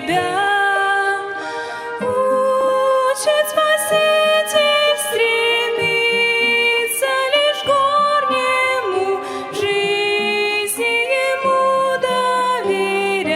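A violin ensemble playing a slow hymn melody in long, sustained notes.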